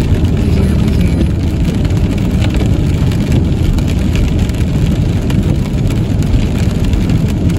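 Steady low road and engine rumble from inside a car driving on a rain-soaked street, with light rain ticking on the windshield.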